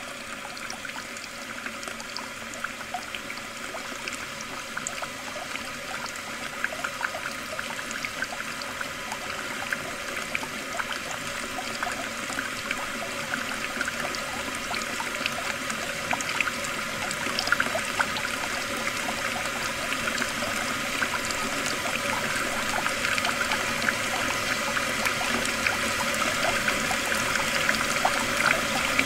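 Water running into a bathtub: a steady pouring rush with fine crackling, growing slowly louder.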